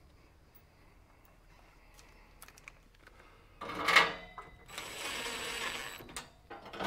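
A sharp knock, then a DeWalt cordless impact driver runs a sheet-metal screw into the heater's steel front panel for about a second and a half. A few faint clicks come before it.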